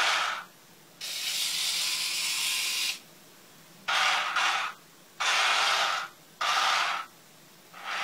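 Remote-control model Merkava tank's electric motors and gearing running in six short stop-start bursts, most under a second. The one about a second in runs for about two seconds and sounds hissier and higher.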